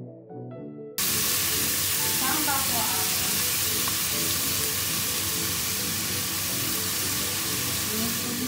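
Loud steady hiss, like sizzling, that cuts in abruptly about a second in and cuts off near the end, over background music.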